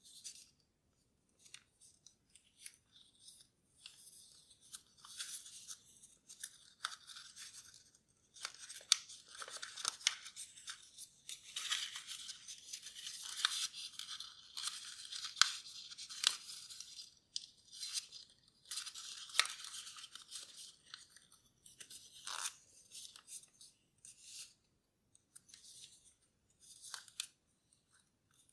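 Origami paper crinkling and rustling as it is creased and folded by hand, in irregular crackles with sharp clicks. Sparse at first, busiest through the middle, then thinning out near the end.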